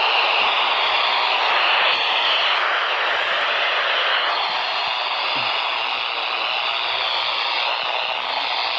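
Steady radio static hiss from a weather-radio receiver with no voice on it.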